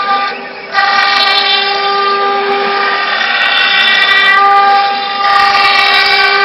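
A 1.5 kW water-cooled spindle on a 6040 CNC router is machining a sheet, giving a steady, high-pitched whine with many overtones. The sound drops away briefly about half a second in, then comes back at full strength.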